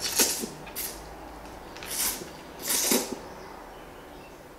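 A person slurping rice noodles of pho from a bowl of soup: four short airy slurps, the last a little longer.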